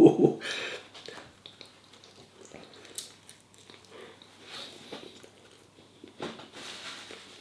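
Quiet chewing and mouth sounds of a man eating, with faint, irregular small clicks.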